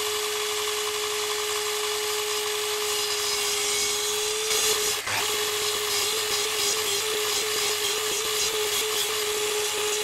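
Sliding mitre saw running at full speed with a steady whine while its blade makes repeated shallow cuts into an ash board to waste out a notch, with one brief knock about five seconds in.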